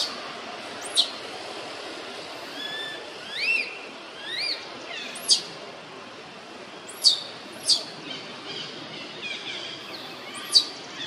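Baby macaque giving short, high-pitched squeaking cries, about eight in all, most sliding sharply down in pitch and two rising then falling, over a steady background hiss.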